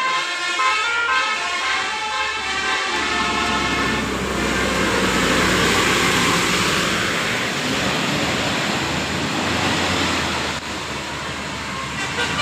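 Bus telolet 'Basuri' melody horn playing a quick tune of short stepped notes. From about four seconds in it gives way to the loud rush of the bus driving past, engine and road noise swelling and fading. The horn tune comes back faintly near the end.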